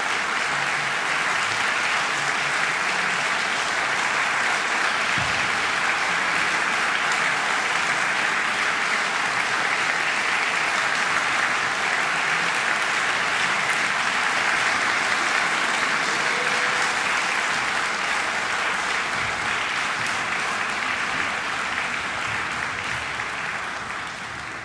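Concert audience applauding steadily, tapering off slightly near the end.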